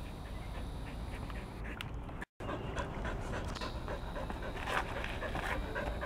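A dog panting, with a brief dropout to silence a little over two seconds in.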